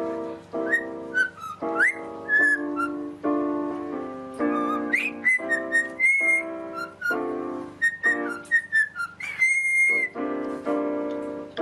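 A whistled tune of short notes and quick upward glides over music with held chords underneath.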